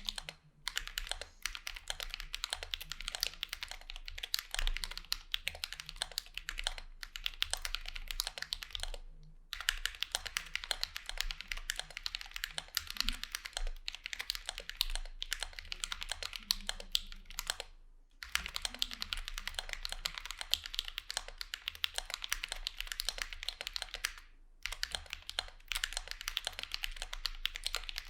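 Fast continuous typing on a mechanical keyboard with lubed Drop Holy Panda tactile switches in a Vulcan x KBDfans Maja case, a dense run of key clacks broken by brief pauses about 9 and 18 seconds in.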